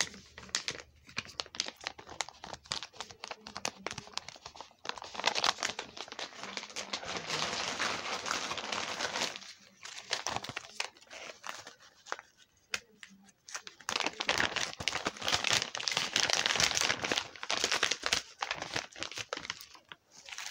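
A bag of goji berry powder being handled, crinkling and rustling in two long bouts, with scattered crackles and clicks between them.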